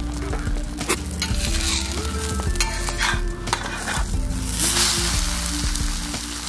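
Egg omelette sizzling in ghee on a hot griddle, with a metal spatula scraping under it as it is lifted and flipped.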